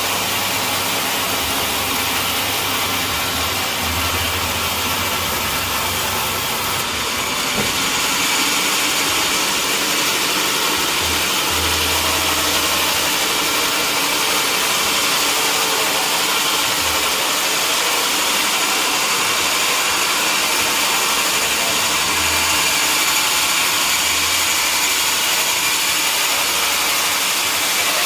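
Sawmill machinery running steadily: a loud, even mechanical hiss with no separate strikes, rising slightly about seven seconds in.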